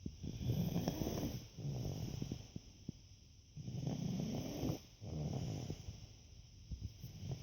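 Snoring: slow, rhythmic snore breaths, each in-and-out pair followed by a short quiet pause, about three cycles.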